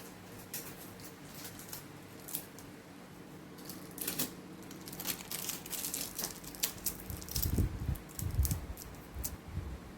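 Hands working on a laptop during reassembly: scattered small clicks and taps of plastic and metal parts, with a few low thumps in the last few seconds.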